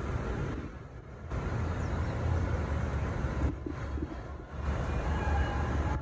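Steady low rumble of city traffic, swelling and easing slightly as vehicles pass.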